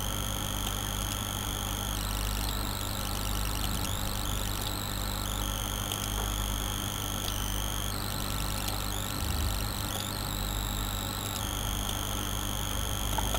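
A steady low electrical hum, with high-pitched whining tones above it that step in pitch and switch on and off every second or two.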